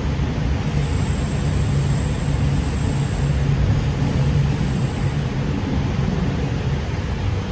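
Cabin running noise of a Sydney Trains K set double-deck electric train under way: a steady low rumble, with a faint high whine from about one to three and a half seconds in.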